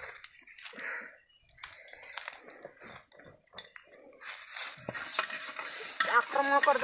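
Rustling and crackling of dry leaves being handled, with scattered light clicks and knocks against a metal bowl. A voice is heard briefly near the end.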